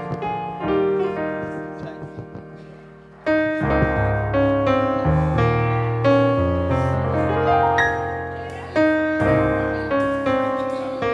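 Piano playing slow chords and melody, softly at first, then fuller and louder with low bass notes from about three seconds in.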